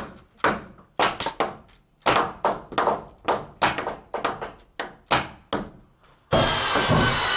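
Pneumatic metal-connector nail gun firing nails through a steel hurricane tie into a truss, a rapid series of sharp shots with short ringing tails, several per second. About six seconds in, a power drill starts running steadily with a whine, driving a TimberLOK structural screw.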